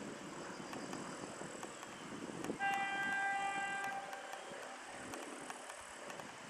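TEP70 diesel locomotive sounding its horn in one high blast of just over a second, partway through, over the steady rumble of the approaching train.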